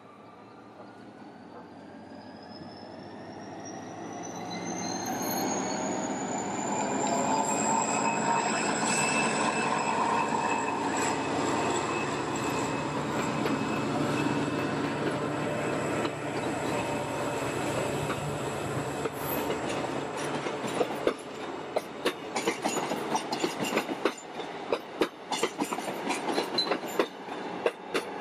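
Korail passenger train approaching and passing: it grows louder over the first several seconds with a high whine rising in pitch, then the coaches rumble steadily past. In the last third, rapid sharp clicks of the wheels over the rail joints come through.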